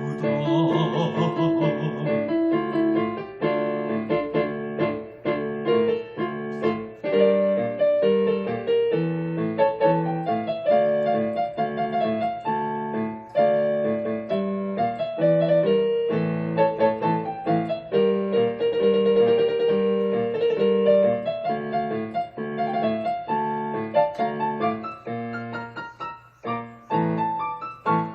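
Instrumental interlude of a Korean popular song's backing track, an electric keyboard carrying a slow melody over sustained chords. A sung word comes right at the start.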